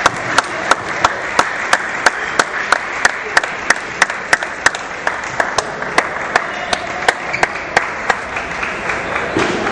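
Spectators clapping together in a steady rhythm, about three claps a second, over a background hubbub; the clapping stops near the end.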